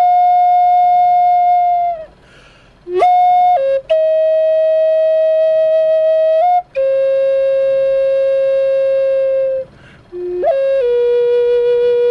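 Shamanic flute playing a slow line of long held notes that step gradually lower. Twice it pauses briefly for breath, and each time a quick flourish of short notes leads into the next held note.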